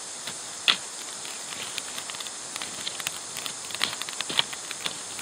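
Wood fire in a hangi pit crackling, with scattered sharp pops over a steady hiss and one loud snap about two-thirds of a second in.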